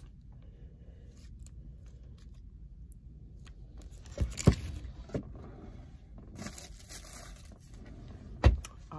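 Handling noises from a plastic snack cup and utensil: a few sharp knocks around the middle and a loud one near the end, with about a second of crinkly rustling between them.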